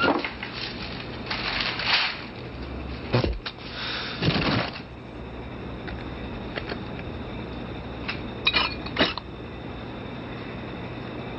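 Small objects clinking and rattling as a drawer is rummaged by hand, over a steady low hum, with a few sharp clicks near the end.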